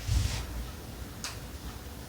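A soft thump just at the start, then a sharp light click about a second in and a couple of fainter ticks.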